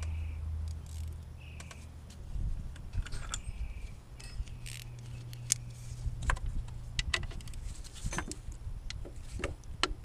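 Irregular metallic clinks and rattles of hand tools being handled, growing busier in the second half, over a low steady hum.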